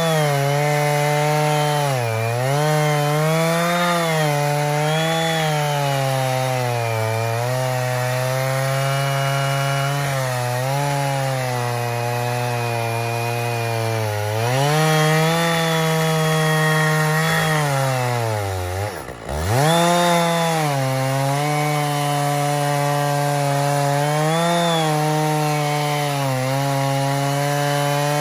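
Stihl 660 Magnum two-stroke chainsaw on an Alaskan chainsaw mill, running at full throttle as it rips lengthwise through a log. The engine pitch sags and recovers again and again under the cut's load. About two-thirds of the way through it drops sharply almost to a stop, then picks back up.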